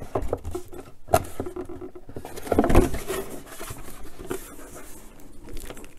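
Cardboard shipping box being handled and turned over in the hands: rustling and scraping, with a sharp knock about a second in and a louder scuffle near the middle.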